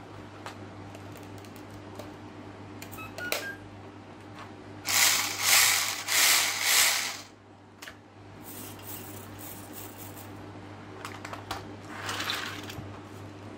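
Small electric drive motor and gears of a toy car converted to radio control, whirring in three short bursts about five to seven seconds in as the throttle is tested with the wheels spinning in the air, with fainter bursts later on.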